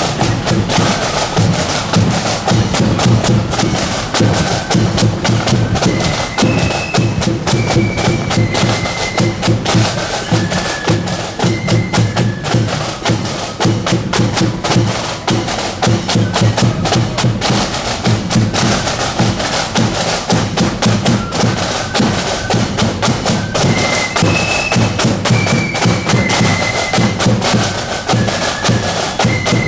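Marching flute band playing a tune: flutes carrying a melody over snare drums and a bass drum.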